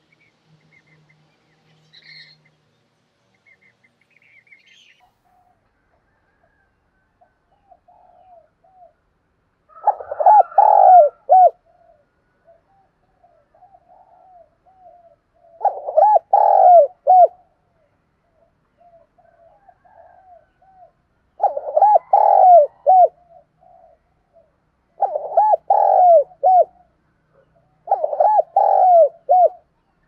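Spotted dove singing its cooing song. From about ten seconds in there are five loud phrases of several rounded coos each, three to six seconds apart, with softer cooing between them. A few faint high chirps come before.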